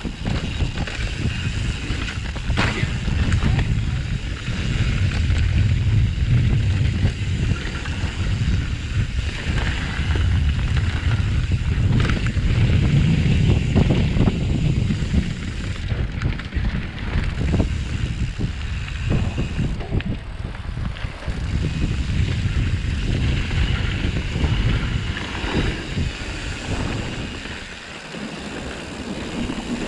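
Mountain bike riding fast down a dirt trail: wind buffeting the camera microphone over the rolling of the tyres on dirt and rocks, with scattered clicks and knocks from the bike rattling over the ground.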